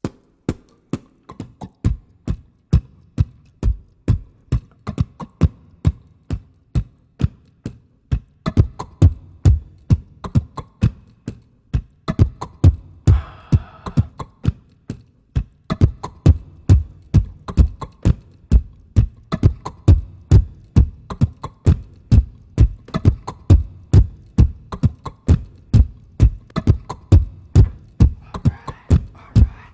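Beatboxed drum loop layered on a Boss RC-505 loop station: kick, snare and hi-hat sounds made with the mouth, repeating at a steady tempo. The beat starts sparse and grows fuller about eight seconds in and again around the middle as more layers are added.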